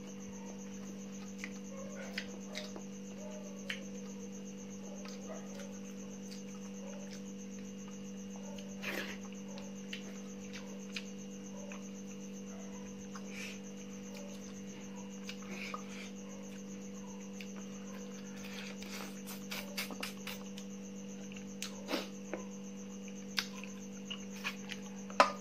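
A steady electrical-sounding hum, with scattered soft clicks and ticks of a person eating by hand from a steel plate: chewing and fingers working the rice and meat against the metal.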